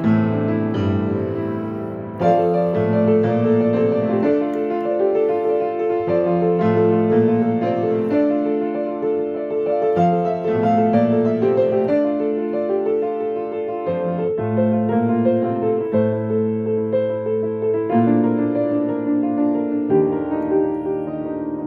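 Acoustic piano played by hand: an instrumental piece of flowing chords, with notes held and overlapping one another.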